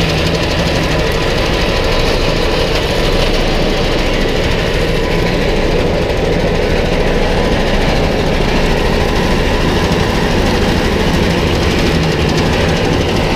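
Small stationary petrol engine running steadily, driving a sugar cane roller press, with a constant mechanical din.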